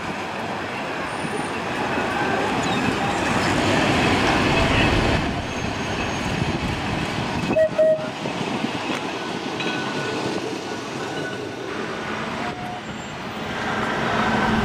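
An open-top Blackpool Boat heritage tram running past on the street rails, a steady rumbling noise that swells as it draws near. About eight seconds in, a brief double toot is the loudest sound.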